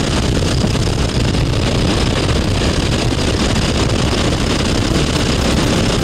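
Steady loud drone of an aircraft in flight: engine noise and rushing air, unchanging throughout.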